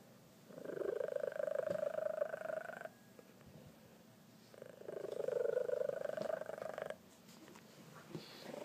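Male Maine Coon cat purring loudly, in two long stretches of about two seconds each with a quiet pause between, and another starting near the end.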